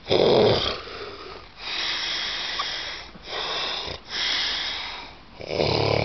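A sleeping man snoring loudly through an open mouth: a rough, rattling snore at the start and another near the end, with hissing breaths in between.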